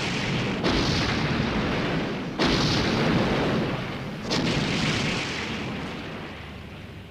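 Explosion sound effect: a continuing blast rumble with three fresh explosions about two seconds apart, each dying away in a long rumble, the last fading out near the end.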